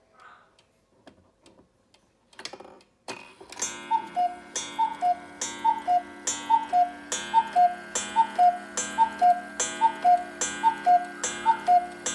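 German cuckoo clock striking twelve o'clock. After a few faint ticks, a click about three seconds in opens the door, then the bellows-blown cuckoo sounds its two-note call, high then low, about once a second, over a steady hum.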